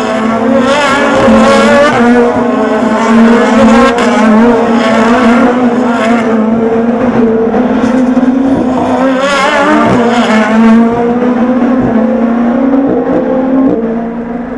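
SUPER GT race cars' engines running through the chicane, one car after another in a continuous stream, their engine notes wavering in pitch as they slow and pull away. The sound eases off near the end.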